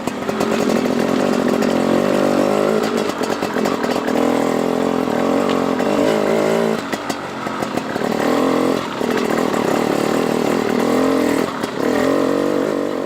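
Enduro dirt bike engine running on a trail, its revs rising and falling as the throttle is worked, with short drops in revs every few seconds and scattered knocks.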